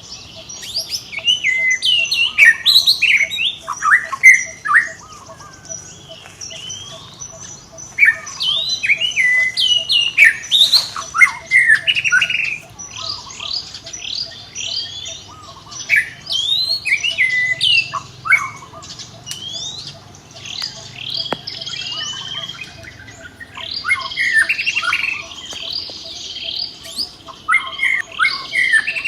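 Many high-pitched animal calls, short squeaks and squawks gliding up and down, overlapping in rapid clusters with short lulls between, over a faint steady hum.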